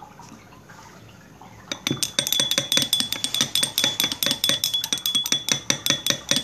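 A utensil stirring a liquid mixture in a glass container, clinking rapidly against the glass several times a second with a bright ring. It starts about two seconds in.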